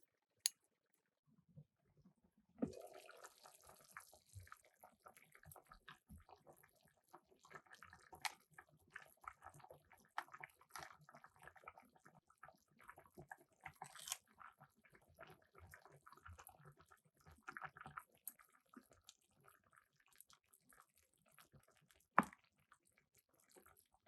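Faint kitchen cooking sounds of soup being made: soft liquid sounds with a few sharp clinks of utensils on cookware scattered through.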